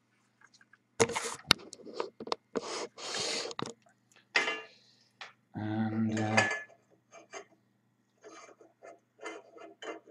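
Metal clinking, knocking and rubbing as a steel exhaust manifold tube is worked by hand in the freshly bored exhaust outlet port of a cast-iron two-stroke moped cylinder barrel. The tube is a loose, 'slappy' fit in the port. The louder knocks come in the first few seconds, with lighter ticks and scrapes near the end.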